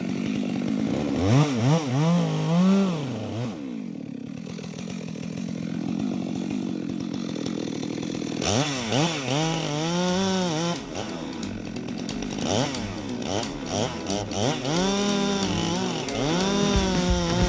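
Two-stroke chainsaw revved up and down again and again, its pitch rising and falling with each burst of throttle, with a steadier, quieter stretch of running in the middle.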